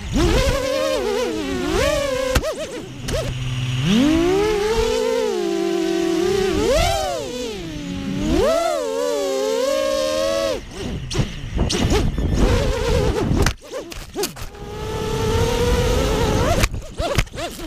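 ImmersionRC Vortex 285 FPV racing quadcopter's motors and propellers whining, the pitch rising and falling quickly as the throttle changes, with gusts of wind noise. In the last few seconds the sound turns choppy and uneven.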